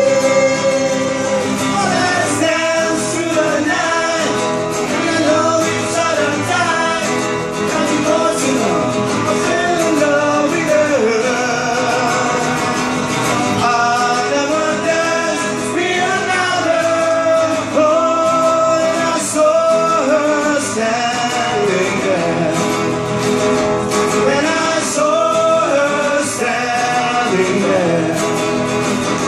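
Several men singing together into microphones, accompanied by a strummed acoustic guitar, as a live performance.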